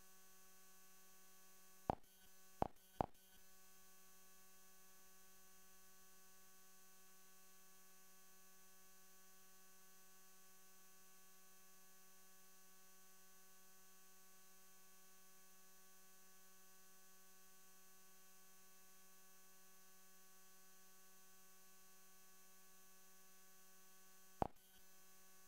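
Faint steady electrical hum with several even tones and a high whine above them, broken by four short sharp clicks: three close together about two seconds in and one near the end.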